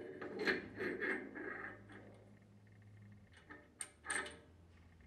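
A pump's packing gland being slid along the shaft and fitted over its cap screws: faint metal rubbing and light clicks for the first two seconds, then a couple of sharper metal clicks about four seconds in.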